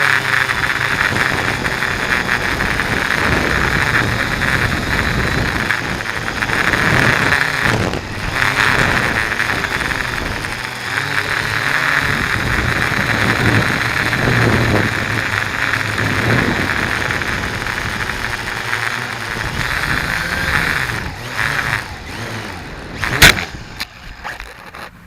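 Syma X8C quadcopter's motors and propellers whirring steadily in flight, heard through the onboard 808 keychain camera's microphone, with wind buffeting. Near the end there is a single sharp knock, and the sound then drops away.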